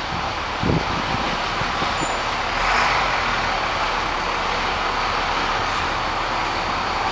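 Steady road and traffic noise, swelling briefly about three seconds in, with a short low bump just under a second in.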